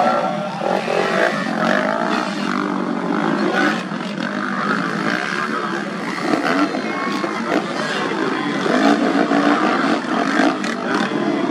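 Several racing motocross bikes' engines running hard together, their pitches overlapping and rising and falling with the throttle.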